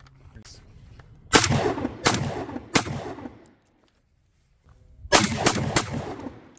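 Citadel Boss Hog semi-automatic 12-gauge shotgun firing high-brass shells: three shots about 0.7 s apart, then after a break three more in quicker succession, each shot with a short trailing echo. The gun is cycling the loads without a stoppage.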